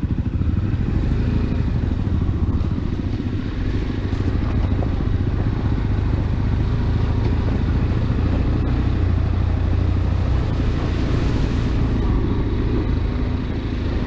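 Motorcycle engine running steadily at low speed on an off-road ride, a continuous low drone.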